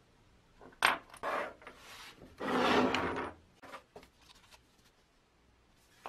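Objects being handled on a wooden workbench: a sharp knock about a second in and another just after, then a louder scrape lasting about a second as a chipboard square is set down and slid into place, then a few light taps from putting down tubes of epoxy.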